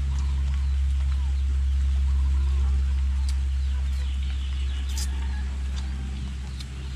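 Caught native frogs calling together in a steady low drone, with faint higher chirps and calls scattered over it.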